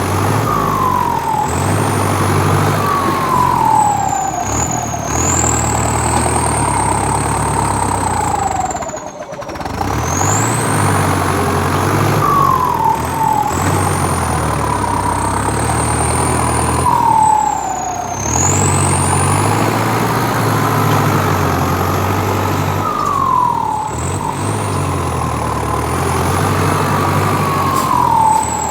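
Motor vehicle running, with a low engine hum and a high whine that rises and falls every few seconds, briefly dropping away about nine seconds in.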